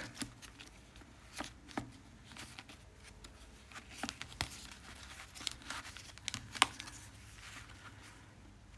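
Faint paper rustling with scattered light clicks and taps from handling and turning the paper pages of a handmade journal.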